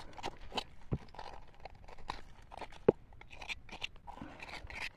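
Irregular crunching and clicking of riverbed gravel and stones being dug through and moved by hand, with one sharp knock of stone on stone a little before three seconds in.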